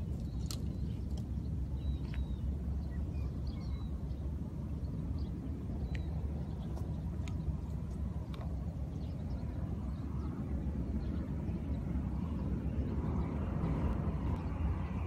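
Wind rumbling on the microphone over open outdoor ambience, with a few faint bird chirps. A distant engine hum swells over the last few seconds.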